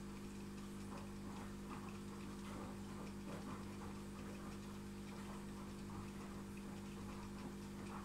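Steady low electrical hum of running aquarium equipment, with faint irregular ticks over it.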